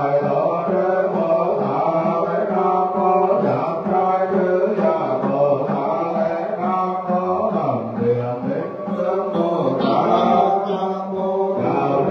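Vietnamese Buddhist monks chanting together in a continuous, steady liturgical chant, one voice carried through a microphone.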